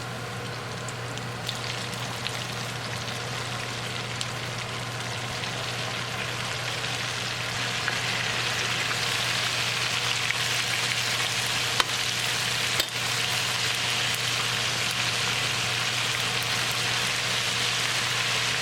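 Flour-coated chicken pieces sizzling as they deep-fry in hot vegetable oil, the sizzle growing louder about eight seconds in as the second batch goes into the oil. A couple of sharp clicks near the middle and a steady low hum underneath.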